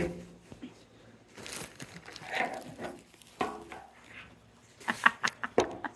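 Nylon fabric and wire frame of a pop-up play tent rustling and crumpling as it springs open, with the phone being knocked about and a few sharp clicks near the end.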